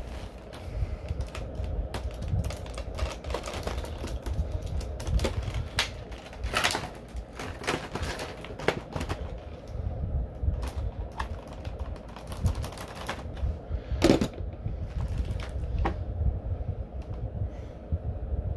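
Hands working tape and plastic ties off an action figure's plastic packaging: irregular clicks, crinkles and scrapes of plastic, with one louder snap about two-thirds of the way through.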